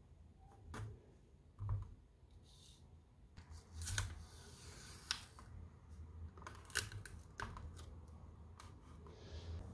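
Sticky tape pulled off a desktop tape dispenser with a hissing peel about four seconds in, then torn off on the dispenser's cutter, among a few soft knocks and sharp clicks as the dispenser and tape are handled.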